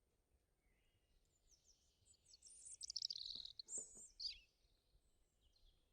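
Faint bird chirping in the background: a quick run of high, falling chirps about two to four seconds in, otherwise near silence.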